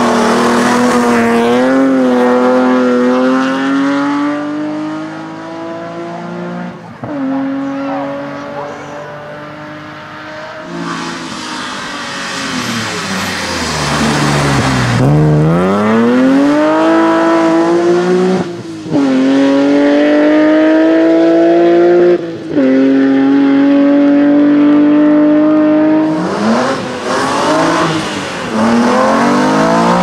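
3-litre BMW E30 hillclimb race car at full throttle, its engine note rising through the revs with several quick upshifts, each a brief break before the note climbs again. About halfway through, the note drops steeply and then builds back up.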